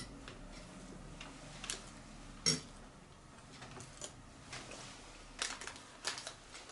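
A fork clinking and tapping against a plate of food while eating: a few short, sharp clicks spread out, the loudest about two and a half seconds in and a small cluster near the end.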